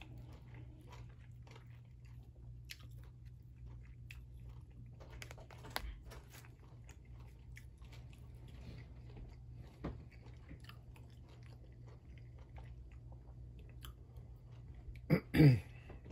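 Close-up mukbang eating sounds: a person chewing and biting mouthfuls of beef and rice, with light clicks and taps of a spoon and fork in a plastic tray. Near the end comes a brief voiced sound that falls in pitch, the loudest moment.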